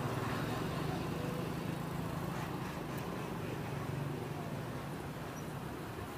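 Street ambience: a steady low engine hum from a motor vehicle running, over a background hiss.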